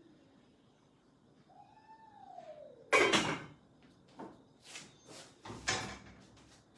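Dishes and cupboards being handled: a loud clack about three seconds in, then several lighter knocks and clinks, another loud one near the end. Before them comes a short whining note that rises and then falls.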